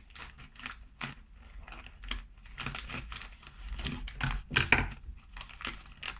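Toy packaging being handled and opened by hand: a run of irregular short crinkles, clicks and rustles.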